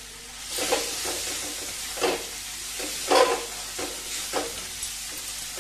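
Sliced onions and capsicum sizzling in a metal kadhai as a metal spatula stirs them. The spatula scrapes against the pan about once a second over a steady frying hiss.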